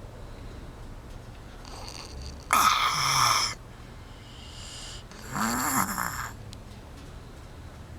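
Snoring in sleep: two loud snores about three seconds apart, each lasting about a second, with quieter breaths between them.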